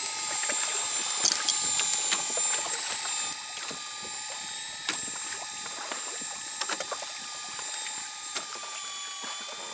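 Fishing reel winding in a hooked sea bass from deep water: a steady mechanical whine with scattered light clicks, a little quieter after about three seconds.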